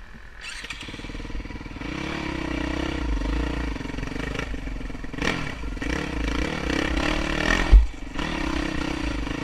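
Dirt bike engine running as the bike rides along a dirt trail, its revs rising and wavering with the throttle. A single sharp thump comes near the end.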